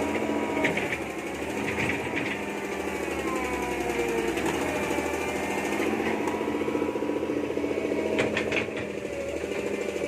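Hitachi UH07 backhoe's diesel engine running with a fast, even clatter and some slowly wavering whine, with a few sharp clicks and knocks about a second in, around two seconds and near the end.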